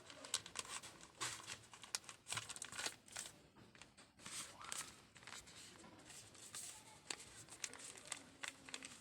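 Packaging of cough relief patches being handled: faint, irregular crinkling with scattered light clicks and rustles.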